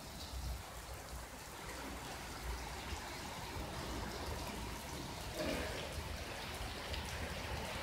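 Tropical rain falling steadily: an even hiss of rain with faint scattered drop ticks.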